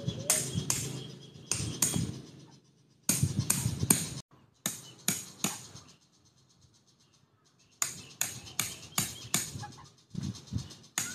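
Sharp, ringing knocks of a hand tool striking a bamboo root as it is carved out into a mortar. They come in short runs of two to six strikes, with a quiet gap of about two seconds midway.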